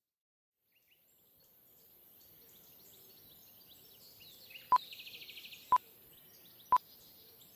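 Film-leader countdown sound effect: a steady hiss fades in with faint chirps, then three short, loud, same-pitched beeps sound one second apart in the second half.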